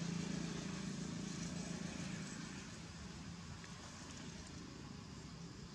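A motor vehicle's engine hums steadily in the background and fades away over the first few seconds, leaving an even outdoor hiss.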